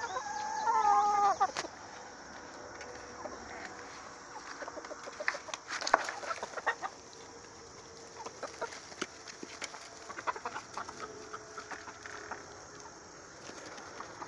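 A flock of backyard chickens: one bird gives a loud, wavering, drawn-out call in the first second and a half, then scattered short clucks and sharp taps as the flock pecks at a thrown apple.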